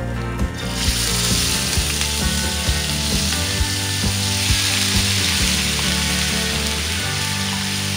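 Raw ground beef sizzling as it drops into hot oil in a wok, the hiss starting about a second in and holding steady as more meat is pushed in with a spatula. Background music with a steady beat runs underneath.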